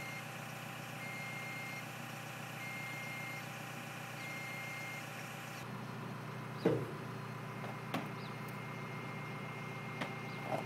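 Mobile crane's engine running steadily while its warning alarm sounds long beeps, about one every second and a half, that stop about five seconds in. Later come a few sharp knocks, the loudest about seven seconds in.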